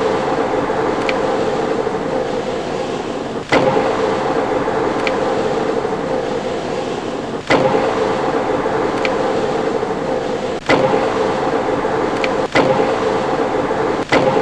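Metal lathe running with a steady mechanical hum and a held tone, broken every few seconds by abrupt jumps in level where the footage is cut.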